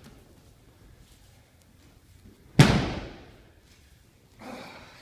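A single loud slap-thud about two and a half seconds in, dying away over about a second in the hall's echo: an aikido partner landing on the training mat in a breakfall.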